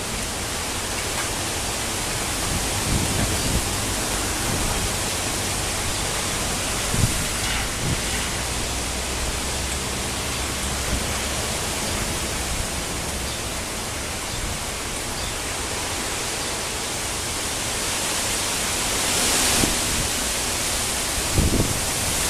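Rain and wind in a storm: a steady hiss of rain, with a few brief low gusts of wind buffeting the microphone.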